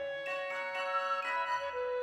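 Background music: a gentle melody on glockenspiel-like bell tones, notes held and changing about every half second.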